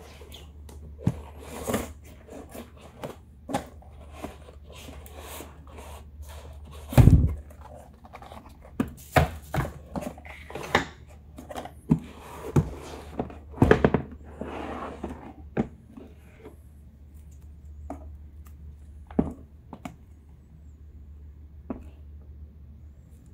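Cardboard laptop packaging being handled: a flap lifted and the box slid and lifted, making a string of short knocks, taps and scrapes, with one heavy thump about seven seconds in. The handling thins out to scattered taps in the second half, over a low steady hum.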